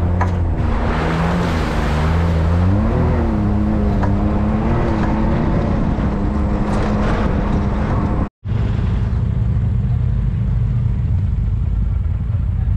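Can-Am Maverick X3 turbocharged three-cylinder side-by-side engine running under way, its pitch rising and falling with the throttle. It cuts off abruptly about eight seconds in and gives way to a steadier, lower engine drone.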